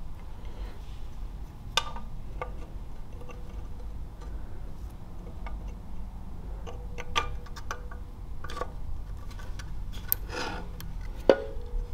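Scattered light metal clicks and taps as a camshaft is slid into a small single-cylinder engine's crankcase and its gear meshed with the crankshaft gear. The loudest click comes near the end and rings briefly.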